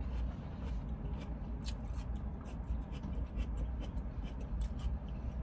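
A mouthful of watermelon being chewed: small wet clicks and smacks at an irregular pace, over a low steady hum.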